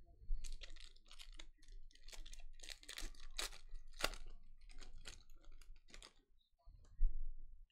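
Foil wrapper of a Playoff football card pack being torn open and crinkled: a quick run of sharp crackles. A single louder thump comes near the end.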